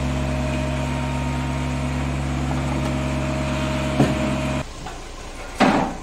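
Diesel engine of a combine harvester running steadily with a deep drone, with a short knock about two-thirds in. The drone cuts off abruptly, leaving a quieter engine idling, and a louder short clank comes near the end.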